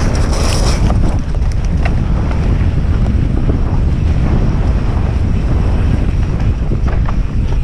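Wind buffeting the camera microphone over the steady rumble of a mountain bike running fast down a dirt trail, with scattered clicks and rattles from the bike.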